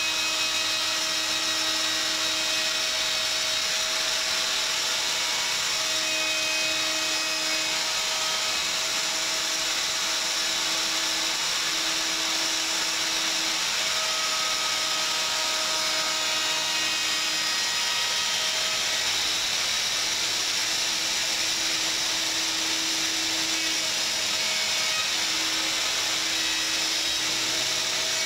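Plunge router running steadily with no pauses as its bit cuts along a straight-edge fence, trimming about a sixteenth of an inch off the tongue at the end of a workbench top.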